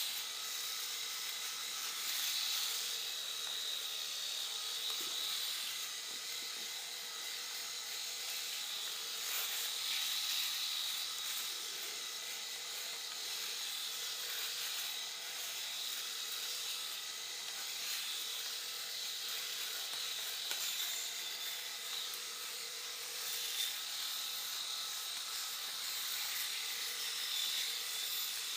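Cordless electric razor running steadily as it shaves a man's face: a constant motor hum under a rasping hiss of the cutting head on skin and stubble. The loudness swells a little now and then as the razor is moved.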